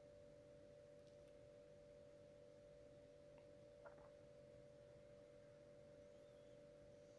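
Near silence: room tone with a faint steady whine and a low hum, and one faint click about four seconds in.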